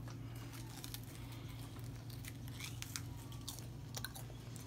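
Crisp fried flour-tortilla triangles crunching and crackling as they are broken apart and chewed: scattered short crisp clicks over a steady low hum.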